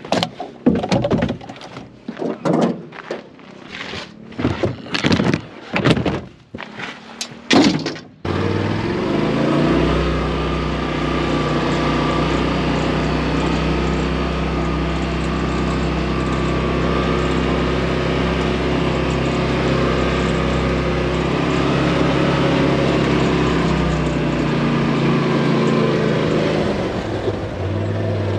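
A run of irregular knocks and thunks, then about eight seconds in a sudden switch to an engine running steadily at an even pitch.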